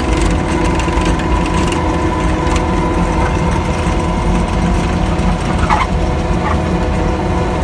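A motor running steadily, a hum of several constant tones over a low rumble, with a few short squeaks near the end.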